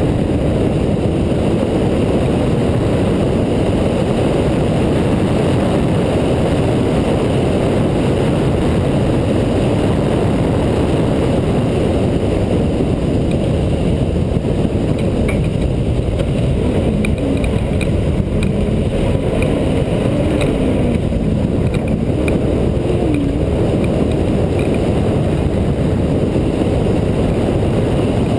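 Off-road race truck running at speed on a dirt track, heard from a camera mounted on the truck: a dense, steady low rumble of engine and ride noise with no let-up.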